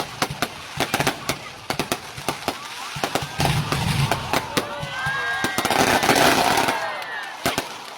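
Aerial fireworks going off: rapid sharp bangs and crackles, with some whistling tones in the middle and a louder, dense crackling burst about six seconds in.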